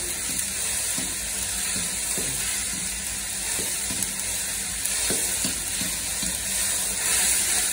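Onions and tomatoes sizzling as they fry in a large black kadai, with a steady sizzle and a long steel ladle scraping and stirring the pan at irregular strokes.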